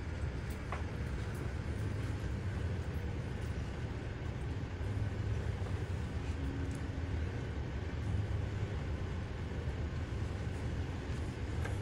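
Steady low rumble of a hospital bed rolling along a corridor floor, with a few faint clicks.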